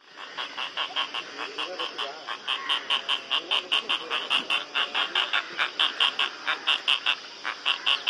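Asian openbill stork sounds: a fast series of dry clicking pulses, about five a second, over a faint lower wavering tone.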